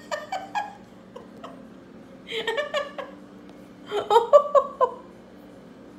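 A woman laughing in three short bursts: one at the start, one a little past two seconds in, and one around four seconds in.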